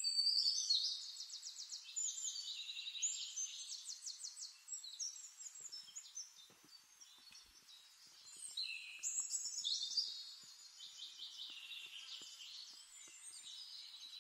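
Small songbirds singing: overlapping high, rapid trills and chirps, loudest in the first couple of seconds and again about nine to ten seconds in.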